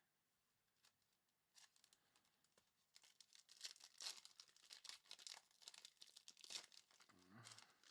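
Faint crinkling and tearing of a trading-card pack wrapper as a pack is torn open and handled, a rapid run of small crackles.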